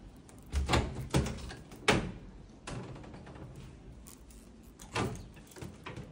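Wooden louvered wardrobe doors being handled and swung open: several knocks and rattles, the loudest about two seconds in, and another about five seconds in.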